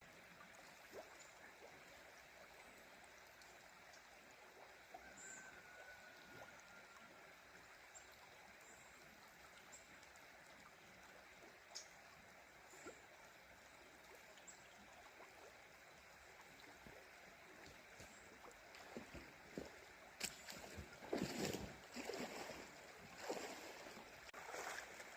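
Faint, steady rush of shallow river rapids, with a few louder irregular noises in the last few seconds.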